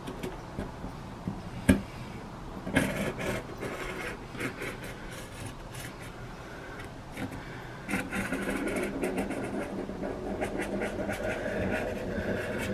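Sharpie marker scratching over cardboard as the outline of a motorcycle frame tube is traced, with the cardboard rustling against the frame. A sharp knock comes just under two seconds in, and the scratching becomes steadier and denser in the second half.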